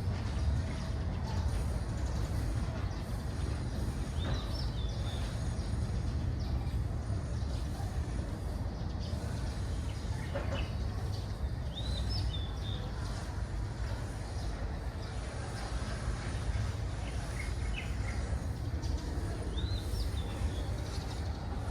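Small birds giving short chirping calls a few times, roughly every eight seconds, over a steady low rumble.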